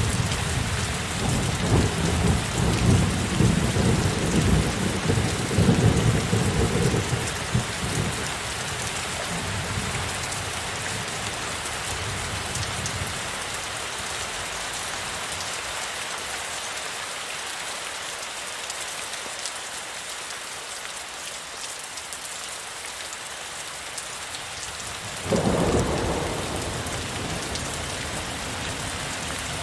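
Steady heavy rain with a long roll of thunder rumbling over the first dozen seconds, loudest a few seconds in and fading out. About 25 seconds in, a sudden thunderclap breaks over the rain and dies away.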